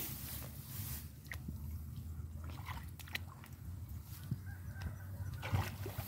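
A hand groping in the wet mud of a field-crab burrow among rice plants: scattered soft squelches and a few short clicks over a low rumble.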